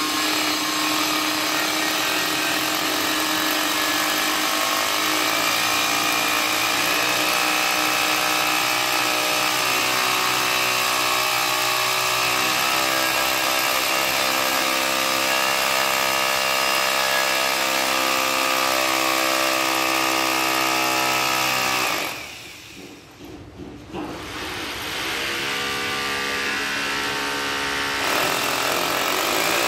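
Handheld electric drill running at steady high speed against a window frame, its motor whine holding an even pitch. About two-thirds of the way through it stops for a second or two, then spins back up and runs on.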